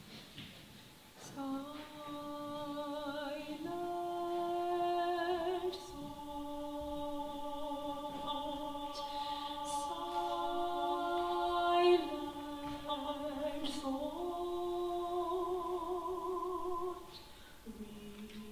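A woman singing long sustained notes with slight vibrato, stepping between a few pitches. It comes in about a second in and falls away near the end.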